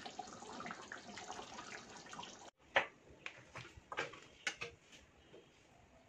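Thick curry gravy bubbling and popping as it simmers in a metal pan, then, after a sudden break about two and a half seconds in, a few sharp clinks and knocks of a metal ladle against the pan and a ceramic plate as the curry is served.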